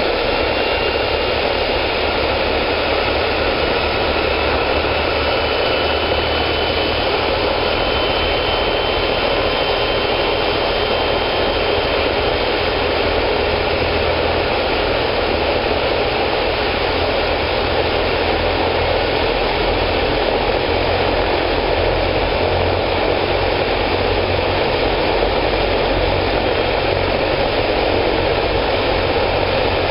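Eurocopter-Kawasaki BK-117B-2 twin-turbine helicopter running on the ground with its rotor turning, ready for takeoff: a steady turbine whine over rotor and engine noise.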